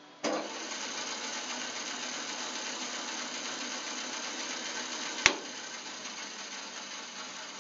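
Baileigh WBS-14 14-inch bandsaw switched on: the motor and blade start with a sudden jolt and run with a steady whir. About five seconds in there is a single sharp click, and after it the running sound gradually gets quieter.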